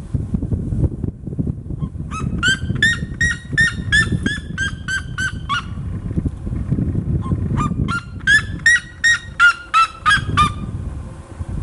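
Red-legged seriemas calling: two runs of loud, repeated yelping notes, about three or four a second, the second run louder. A low rumbling noise runs underneath.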